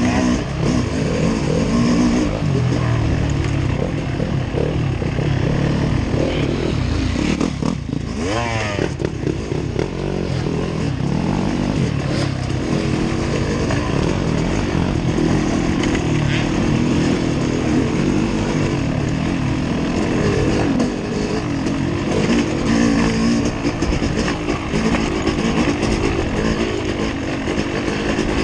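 A vehicle engine, likely a dirt bike's, running and revving, its pitch rising and falling over and over.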